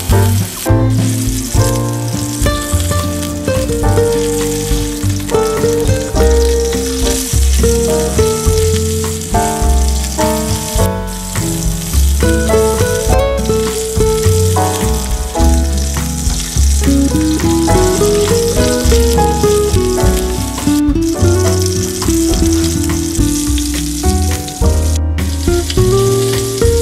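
Miniature hamburger patties sizzling as they fry in oil in a tiny stainless steel pan. A background music track with a melody over a bass line plays at the same time.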